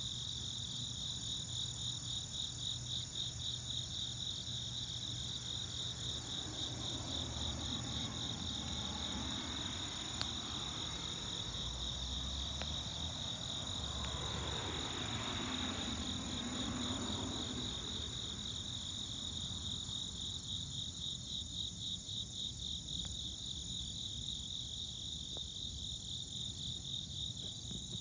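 Steady chorus of crickets, a fast pulsing high chirr. Midway a low rumble swells for several seconds and fades again.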